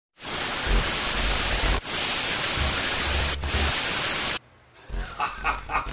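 Loud, even static hiss, broken by two brief drops, that cuts off abruptly about four and a half seconds in.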